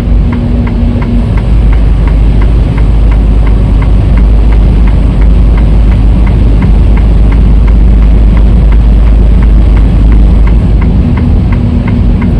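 Semi truck's diesel engine and road noise heard from inside the cab while driving: a loud, steady low rumble, with a light ticking repeating about three times a second.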